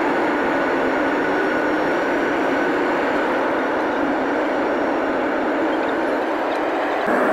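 Cabin noise of a jet airliner during the takeoff run and initial climb: the engines and rushing airflow make a steady noise heard from a window seat over the wing. The level steps up slightly just before the end.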